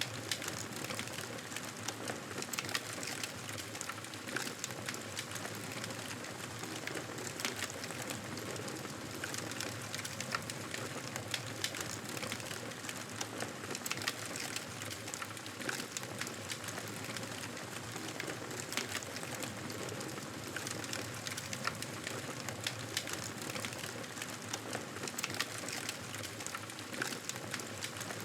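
Wood fire crackling in a fireplace: a steady hiss with frequent small, irregular pops and snaps.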